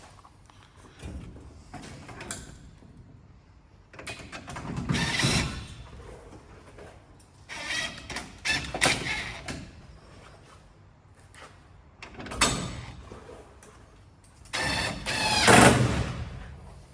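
Greenhouse door hinge hardware being bolted on: several separate bursts of rattling and scraping, each a second or two long, with the loudest near the end.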